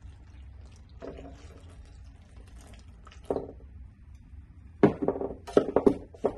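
Water poured slowly from a glass jar into a long metal mud pan of dry feather-finish cement powder. About five seconds in, mixing starts: a hand tool scrapes and knocks in quick succession against the metal pan, the loudest sound here.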